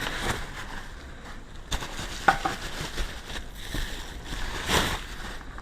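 Rustling and scattered light clicks and knocks as a plastic tail light assembly is picked up and handled, with one louder knock near the end.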